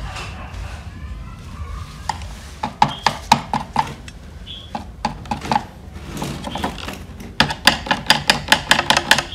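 Screwdriver tip scraping and picking at dried, caked mud inside a disc player's chassis, in quick runs of sharp clicks and scrapes: one run about three seconds in, a denser one over the last few seconds.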